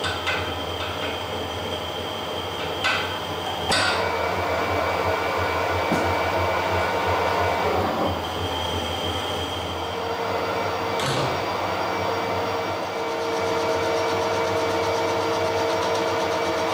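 Harrison 140 centre lathe running, turning a steel bar between centres as the tool takes a cut: a steady drone from the machine with steady higher tones, and a few sharp clicks. The cut is running cleanly without chatter.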